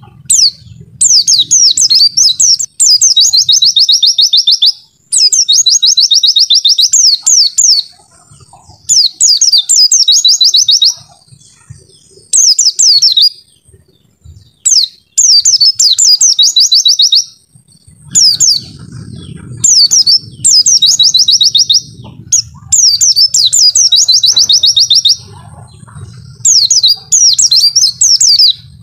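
White-eye (pleci) singing: a string of loud, high song bouts of about two seconds each, many ending in a fast trill of rapidly repeated notes, with short pauses between.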